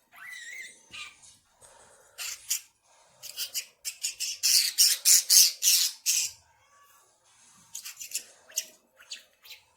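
Pet budgerigar chattering: quick, scratchy warbles and squawks, rising to a loud run of rapid harsh calls about halfway through, then softer chatter.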